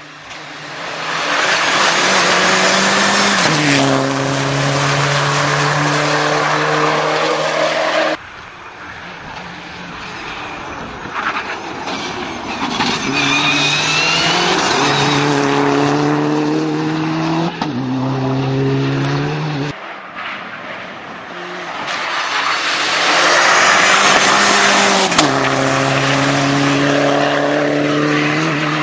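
Mitsubishi Lancer Evo IX rally car's turbocharged four-cylinder engine at full throttle, its pitch dropping in steps at each upshift, with a brief tyre squeal through a corner. The sound breaks off suddenly twice.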